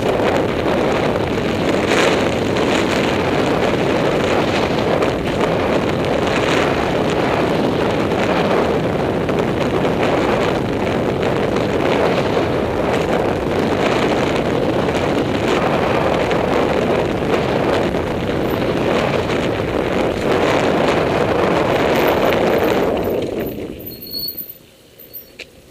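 Loud rush of wind on the microphone mixed with tyre roar and the rattle of a mountain bike riding fast down a dirt jump trail, with scattered knocks from landings and bumps. The noise drops away suddenly about a second before the end as the bike stops.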